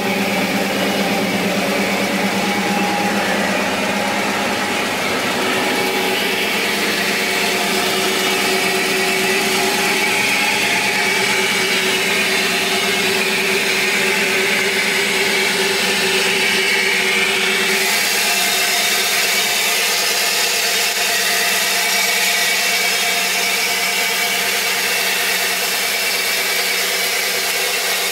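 Truck's 5.3-litre V8 running under way, a steady drone with slowly shifting pitch over road and wind noise.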